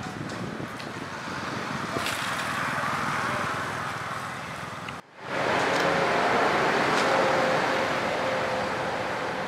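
Steady outdoor rushing noise, of the kind distant road traffic makes, that swells and fades. It breaks off abruptly about five seconds in, then comes back louder with a faint low hum.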